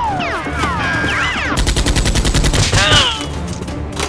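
Rapid gunfire, a fast machine-gun-like burst of shots about a second and a half in, with short falling pitched sounds over the first second and a half.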